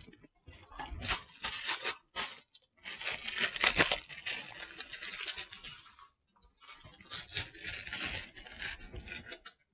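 Clear plastic bag crinkling and rustling in gloved hands as a new rubber CV axle boot is unwrapped from it, in three spells of two to three seconds each with short pauses between.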